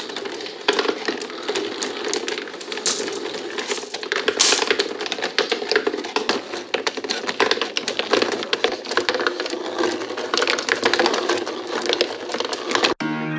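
Glass marbles rattling and clicking continuously through a cardboard marble run with an escalator lift, with a steady hum underneath. It cuts off suddenly near the end.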